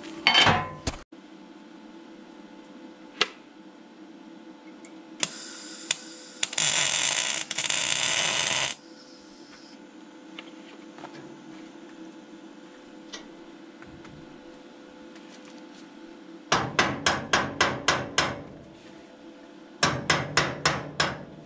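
A sharp clank at the start, then a MIG welder laying a tack weld, about two seconds of harsh crackling hiss. Near the end a hammer strikes steel in two quick runs of rapid blows, about five a second, squaring up the freshly tacked bracket. A steady low hum runs underneath.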